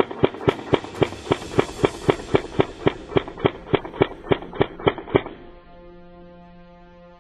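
Background music with a steady, sharp percussive beat of about four hits a second over held tones. The beat stops about five seconds in, leaving only the sustained tones.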